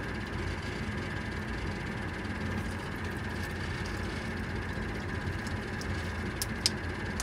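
Steady hum of a 3D printer's cooling fans running, with two faint plastic clicks near the end as a freshly printed print-in-place cable chain is flexed loose.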